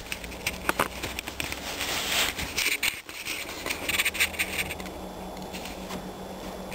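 Scraping, rustling and clicking from the camera being handled, over a steady low hum of the Kawasaki KLE 500's parallel-twin engine idling at a cold start. The handling noise stops about five seconds in and leaves the even engine hum.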